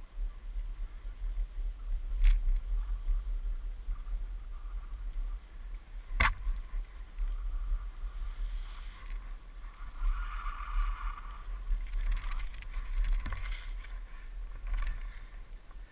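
Mountainboard rolling over rough, grassy mountain ground, with a steady low rumble throughout. Sharp knocks come about two and six seconds in, and a rustling hiss rises in the later part.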